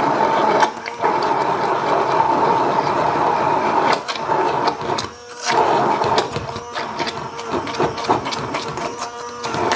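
Handheld immersion blender running in a glass jar of thick mayonnaise, a steady motor whine with the blade churning the mix. The motor cuts out briefly twice, just under a second in and about five seconds in, and its whine sits lower after the second break.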